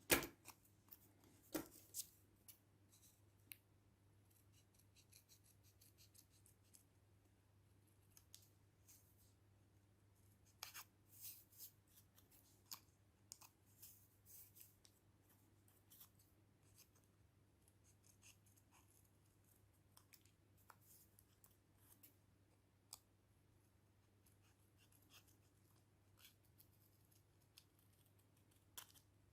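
Scissors snipping paper in short, scattered cuts with pauses between, the sharpest snips near the start and a cluster around the middle. A faint steady hum sits underneath.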